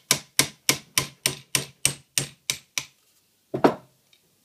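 Hammer tapping a roll pin punch to drive the bolt catch roll pin out of an AR-15 lower receiver: about ten quick, even metallic taps, about three a second, then one heavier knock near the end.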